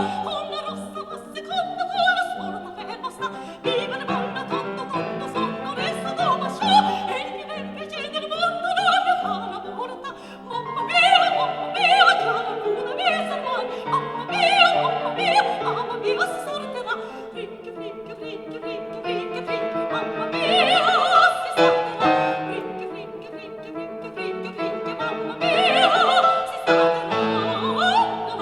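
Operatic singing with vibrato over an orchestra, played back through an old classroom loudspeaker: a National EAS-16P alnico 16 cm full-range unit in a Zenhoren No. 1 type cabinet.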